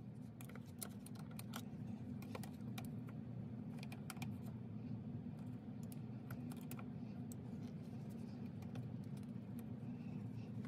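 Faint, irregular plastic clicks and taps of a flat-blade screwdriver tip prying at the plastic retainer clip on an EVAP vent solenoid's wiring connector, over a steady low hum.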